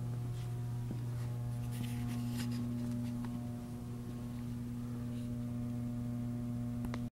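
ZP 19-station rotary tablet press running, its electric drive motor giving a steady low hum with a few faint clicks from the turret.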